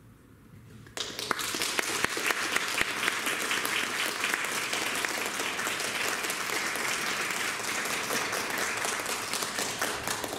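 Audience applauding. The clapping starts suddenly about a second in, holds steady and dies away near the end.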